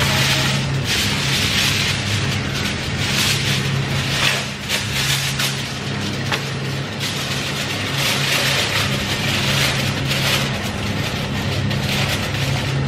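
Aluminium foil crinkling in several long bursts as a sheet is pulled from the roll, torn off and pressed down over a steel cooking pot.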